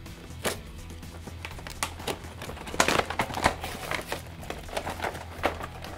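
Plastic packaging of a boxed action figure crinkling and rustling as it is handled and pulled out of its box: a run of irregular crackles, loudest around the middle.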